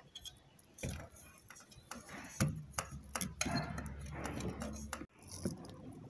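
Irregular metal clicks and knocks with some rubbing as a blender motor's field coil is pressed into the metal housing and seated around the armature.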